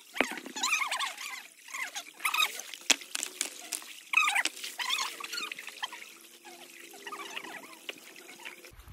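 Shallow stream water trickling and splashing as hands feel about under riverbed stones, with a couple of sharp knocks of stone on stone.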